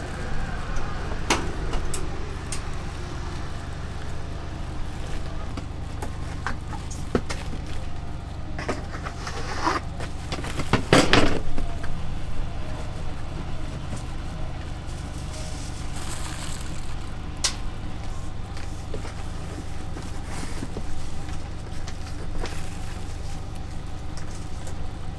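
Pizza-making work in a food truck: scattered clicks and knocks of utensils and trays over a steady low hum, with one louder clatter about eleven seconds in.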